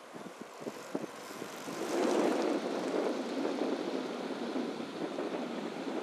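Wind buffeting the microphone, rising to a steady gusty rush about two seconds in, with a few faint clicks before it.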